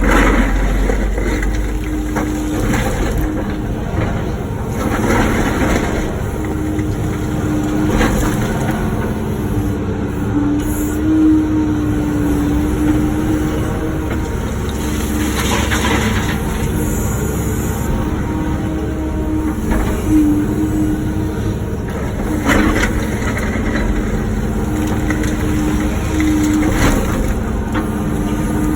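Wacker Neuson ET145 excavator working: its diesel engine and hydraulics run with a steady hum, while the bucket digs out and breaks up blacktop and concrete with intermittent crunches and scrapes.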